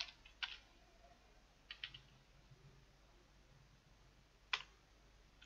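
A few separate computer keyboard keystrokes, slow and spaced out: one about half a second in, a quick pair near two seconds, and a sharper one about four and a half seconds in. It is near silent between them.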